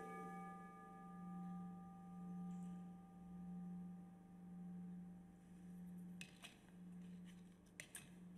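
Consecration bell struck once at the elevation of the host: a long, steady ringing tone that pulses slowly, its higher overtones fading over the first few seconds. A few faint clicks near the end.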